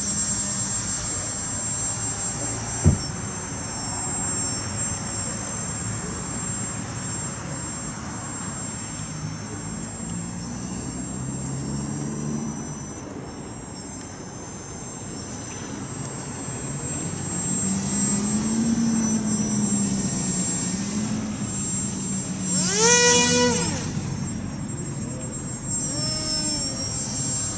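The motor and propeller of an RC paramotor (an Oxy 1.0 paraglider wing with a BackPack XS motor unit) buzzing as it circles, the pitch rising and falling with throttle and distance. Near the end it passes close, with a brief louder tone that slides down in pitch. A single sharp knock about three seconds in.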